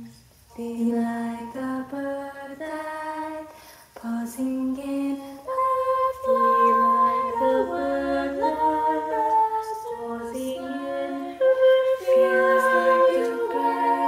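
Women's choir singing in harmony, several voice parts moving on sustained notes. The singing drops out briefly just after the start and again about four seconds in, then runs on in longer held phrases.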